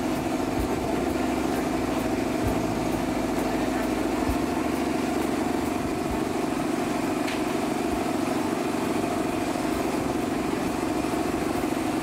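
A motor running steadily with an even, unchanging drone, which fits the pump or aerator churning the fish tank's water.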